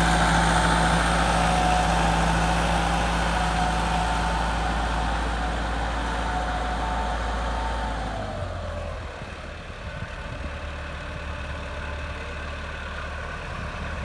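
Massey Ferguson 385 tractor's four-cylinder diesel engine running steadily while pulling a planter through the soil. About eight seconds in, its pitch falls and the sound grows quieter and more distant.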